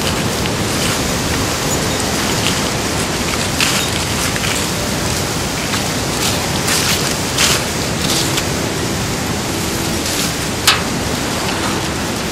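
Strong storm wind rushing steadily and buffeting the microphone, with a few short clicks and rustles scattered through it; the sharpest click comes about two-thirds of the way through.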